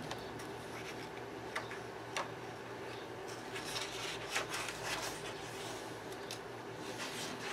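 A paper page of a coloring book being lifted and turned over, a quick papery rustle about four seconds in, with a few small taps of fingers on the paper before it, over a faint steady hum.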